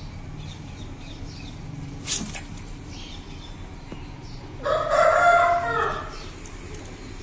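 A rooster crowing once, a pitched call of about a second and a half starting past the middle. A short sharp click comes about two seconds in.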